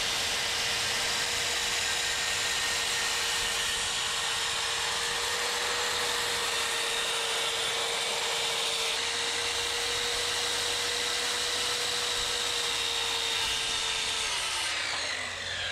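Skil circular saw cutting a thin seam groove along a wooden deck plank, its motor holding one steady note under the noise of the blade in the wood. About a second before the end it is switched off, and the pitch falls as the blade winds down.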